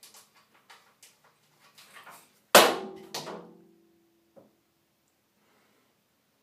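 A cat's paw knocking about a wire shower caddy and the things on it. Light taps and clicks come first. Then a loud clatter with a brief metallic ring, a second knock right after, and one small tap about a second later.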